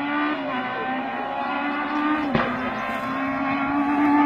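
Hillclimb rally car's engine pulling hard at high revs, with a sharp momentary drop in pitch at two gear changes, growing louder as the car approaches.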